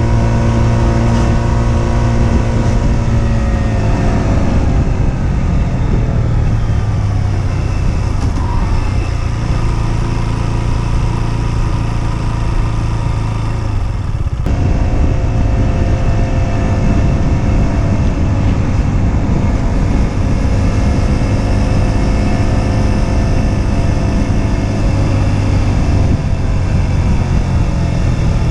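Husqvarna Svartpilen 125's single-cylinder engine pulling the bike along at speed. The pitch drops a few seconds in as the bike slows, there is a short break about halfway, which fits a gear change, and then a steady run before easing off again near the end.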